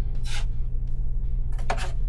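Drywall taping knife scraping over paper tape and joint compound in two short strokes, over background music.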